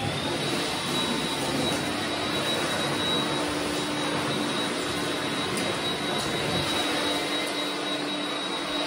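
Handheld leaf blower running steadily at full speed, a rush of air with a high whine, as it blows leaves and debris out of a snowmobile.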